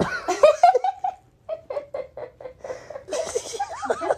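A young woman laughing hard, in a string of quick breathy bursts with a few higher whooping glides.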